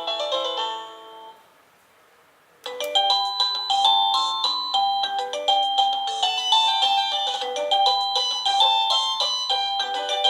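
INTENDVISION wireless doorbell chime receiver playing its electronic melodies. One chime tune fades out about a second in, and after a short pause the next tune starts: a quick melody of bright electronic notes.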